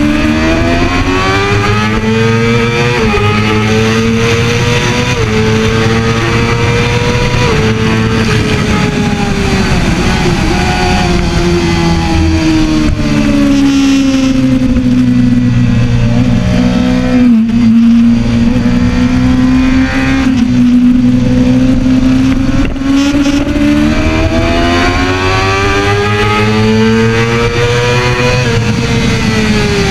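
2013 Kawasaki ZX-6R inline-four sportbike engine heard from on board at track speed with wind rush. The engine note climbs in steps through several upshifts in the first eight seconds or so, then falls as the bike slows through the middle. It climbs again under acceleration in the last third and eases off near the end.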